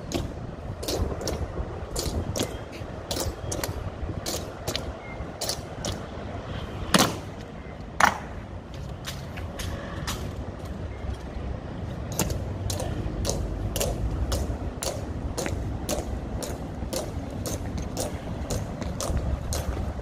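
Many sharp clicks and taps, typical of honor guard drill with metal-heeled boots and rifles on stone. Two much louder strikes come about 7 and 8 seconds in, the second with a short metallic ring.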